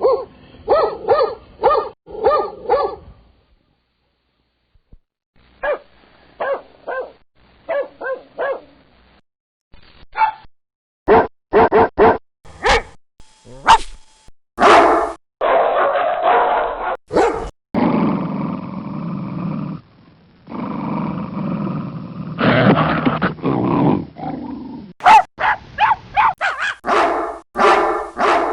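A series of different dogs barking, played as separate recordings: quick runs of barks, a short pause about four seconds in, then sharper single barks. Near the middle come several seconds of longer, drawn-out dog sounds before rapid barking returns.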